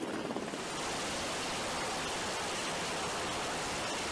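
Steady, even rushing hiss of helicopter rotor downwash as a cargo sling load is lowered onto a ship's deck, setting in about half a second in.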